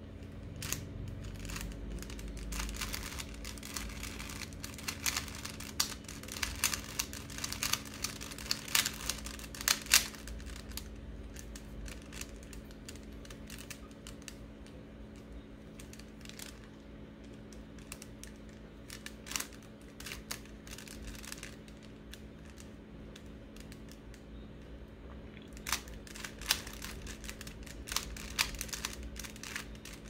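A 3x3 Rubik's Cube being turned by hand: its plastic layers click and clack in quick runs of twists. The clicks are thick through the first third, sparse through the middle and quicker again near the end, over a steady low hum.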